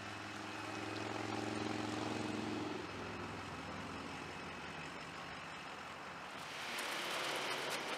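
Pickup truck engine running steadily as it tows a boat trailer past at low speed, fading out about three seconds in. Near the end there is a short rush of hissing noise.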